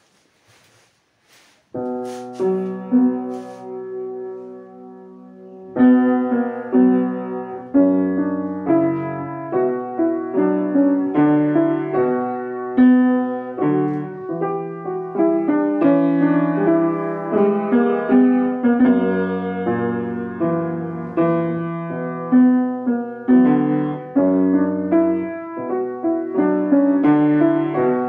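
Solo piano music. A chord enters about two seconds in and fades, then from about six seconds a steady run of melody notes plays over a moving bass line.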